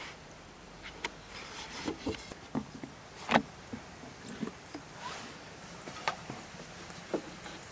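Scattered light knocks and rustles of a long thin wooden rolling pin against a round wooden board as a thin sheet of pastry dough is wound onto it and lifted off, with one louder knock a little over three seconds in.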